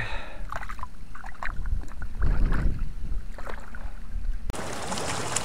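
Water sloshing and splashing around a hand holding a fish in the shallows as it is let go. About four and a half seconds in it cuts abruptly to a steady hiss.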